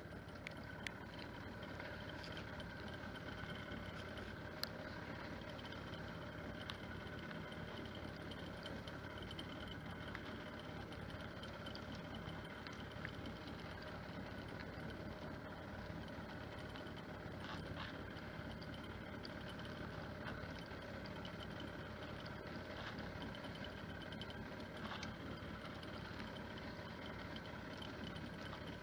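Small fishing boat's engine idling steadily, with a few faint clicks from hooks and line being handled on the gunwale.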